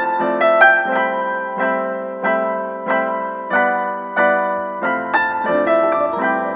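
Background piano music: a steady, repeating pattern of gentle chords.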